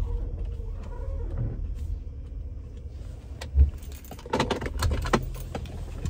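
Car cabin with a steady low road and engine rumble. About three and a half seconds in comes a sharp low thump, followed a moment later by a short burst of clicking and rattling: an unidentified noise from the front of the car.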